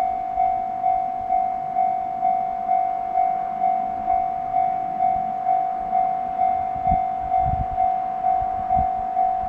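Japanese railway level-crossing warning bell, the electronic Tohoku-type alarm tone, ringing steadily. It is a single ding repeated a little over twice a second, each strike fading before the next. A few low thumps come in the second half.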